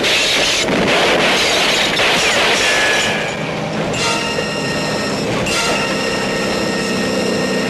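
Rushing spray of water against a car driving fast through shallow surf, dense and loud for about three seconds, then easing. From about four seconds in, a steady held chord of several tones sounds over it.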